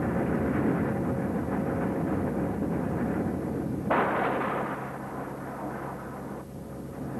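Steady low roar of a C-130 Hercules' turboprop engines and rushing air during a low-altitude parachute extraction drop, with a steady low hum under the noise. About four seconds in, a sudden louder rush of noise comes in and fades over the next couple of seconds.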